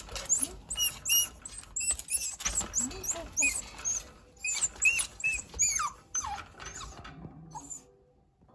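Puppies giving many short, high-pitched whimpers and squeaks, with quick clicks and crunches from eating. The sounds are densest in the first six seconds and thin out toward the end.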